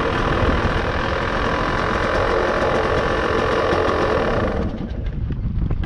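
Yamaha WR250 dirt bike's single-cylinder four-stroke engine idling steadily. About four and a half seconds in the sound turns quieter and duller.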